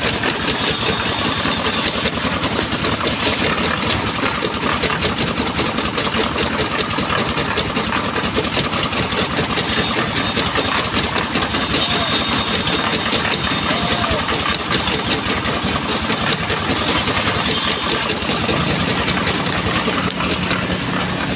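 Engine-driven drum concrete mixer running steadily with a dense mechanical clatter. A low steady hum joins in near the end.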